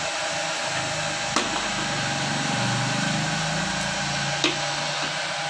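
Handheld hair dryer blowing steadily on a motorcycle headlight assembly, heating it so the lens glue softens and the lens can be pried off. Two small clicks sound about a second and a half in and again about four and a half seconds in.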